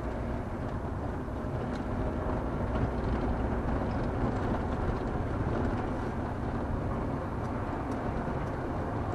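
Steady engine and tyre noise of a car driving along a paved road, heard from inside the cabin.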